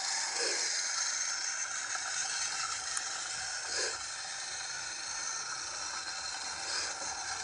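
Battery-powered toy train engines running along a plastic track: a steady motor and gear whine with rattling, and two brief low knocks, about half a second in and again near four seconds.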